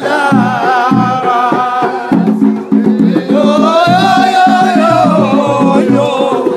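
Arabic folk song: a steady hand-drum rhythm under a wavering melody line. The melody drops out for about a second around the middle, leaving the drums alone, then comes back.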